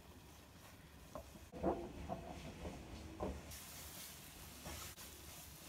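Spatula stirring and scraping gram flour as it roasts in ghee in a non-stick kadhai, with a cluster of soft scrapes and light knocks in the middle, then a faint high sizzle.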